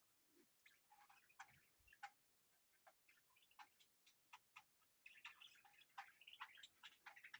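Faint, irregular ticks and brief soft chirps from a budgie, coming more thickly near the end.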